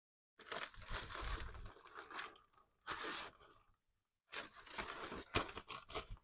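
Rummaging through a box of parts: rustling and crinkling in three spells, the first and last each about two seconds long, with a short one in between.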